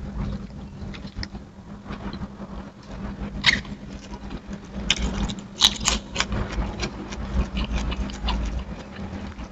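A person chewing and smacking their lips while eating rice and fried chicken by hand, with irregular wet clicks of the mouth, a few louder ones near the middle, over a steady low hum.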